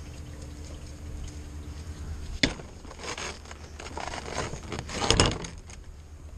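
Rain and wet splashing on waterlogged ground, with a sharp knock about two and a half seconds in and a louder burst of splashing around five seconds in.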